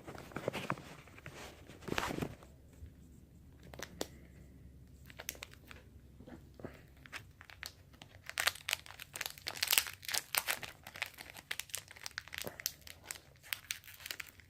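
Foil Pokémon booster pack wrapper being torn open and crinkled by hand, scattered crackles at first, then a dense run of crinkling about halfway through.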